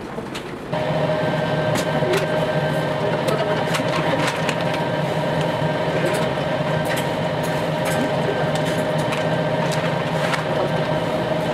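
A steady machine hum of kitchen equipment, starting about a second in, with scattered sharp taps of a knife cutting butter against a plastic cutting board.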